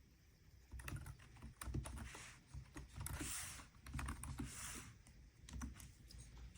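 Typing on a Logitech Wave Keys wireless ergonomic keyboard: an uneven run of key presses, clicks with soft low thuds.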